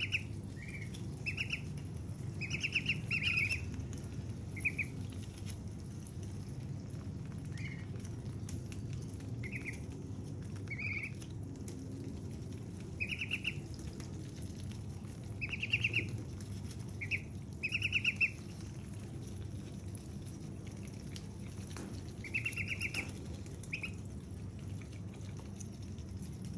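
Young white ducks peeping: about a dozen short, rapidly pulsed high peeps at irregular intervals, sometimes two or three close together, over a steady low hum.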